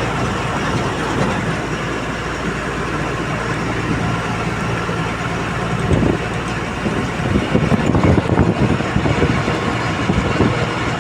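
Steady running noise of a moving road vehicle, with uneven low thumps in the second half.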